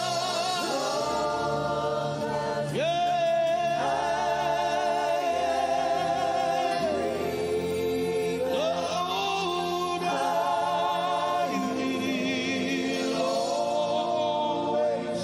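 Gospel worship music: several voices sing long held notes in harmony, sliding to new notes every few seconds, over steady low chords.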